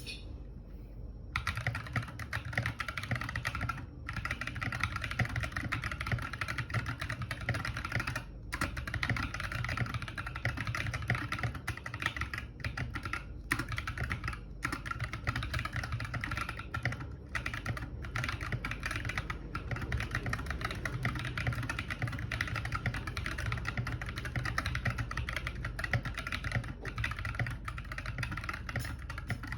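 Akko 3068 v2 mechanical keyboard with Akko Ocean Blue switches being typed on fast and without a break, a dense run of key clacks that starts about a second in.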